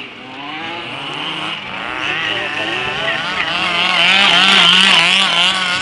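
Several radio-controlled model cars' small engines racing at high revs, their pitch rising and falling quickly as they rev. They grow louder toward a peak about four to five seconds in, as cars pass close.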